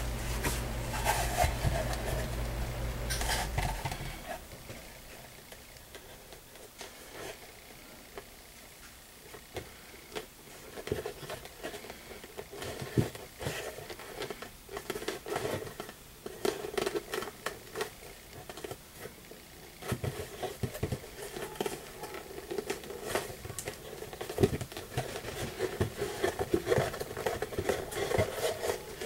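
Hands fitting a molded vegetable-tanned leather bottom into a leather tankard: irregular rubbing, scraping and small taps of leather being handled and pressed into place. A low hum runs at first and cuts off about four seconds in.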